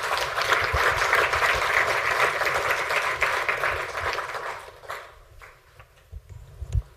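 Audience applauding at the end of a talk, dense clapping for about four seconds that fades out around five seconds in. A couple of low thumps near the end.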